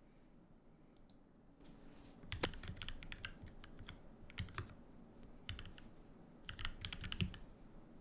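Typing on a mechanical keyboard: several quick runs of keystrokes with short pauses between them, preceded by two faint clicks about a second in.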